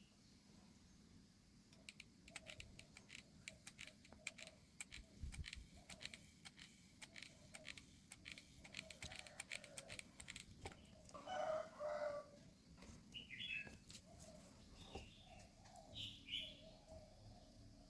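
Faint, irregular clicks and taps from handling small parts, with a few short bird calls in the background: one louder call about two-thirds of the way through, then brief high chirps near the end.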